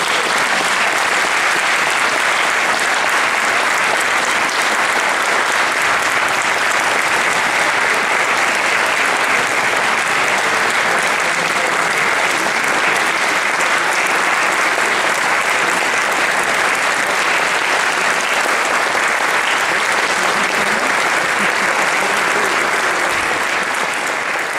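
Audience applauding steadily, the clapping easing off slightly near the end.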